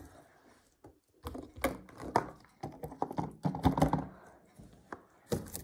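Plastic and silicone fidget toys being handled on a wooden table: irregular clicks, taps and sticky crackles, starting about a second in.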